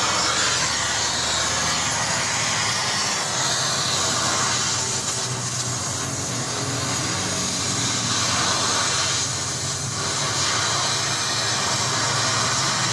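Welding on a car's exhaust silencer pipe from underneath the car: a steady hiss with a low, even hum beneath it.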